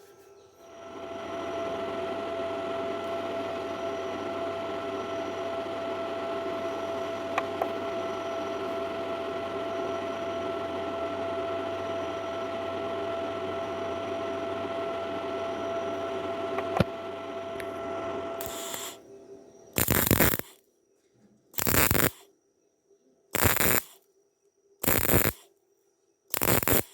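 MIG welding arc crackling steadily through one long continuous run, then stopping and starting in short bursts of under a second, about every second and a half, as when stitching across a wide gap in iron.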